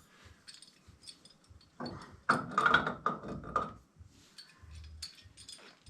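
Scattered clicks and knocks of tools and metal parts being handled during copper pipe work, with a louder stretch of clattering and rattling about two seconds in.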